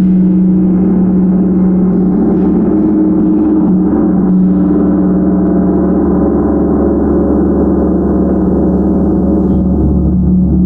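Large tam-tam gong ringing in a dense, steady wash of many overlapping tones, strongest in a low hum, kept sounding with a few soft strokes.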